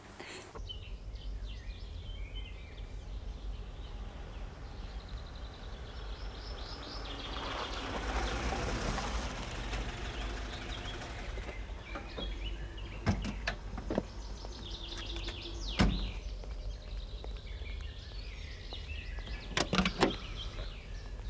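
A car drives up and pulls to a stop, with birds chirping. Then come several solid knocks of car doors and the click of a door being opened near the end.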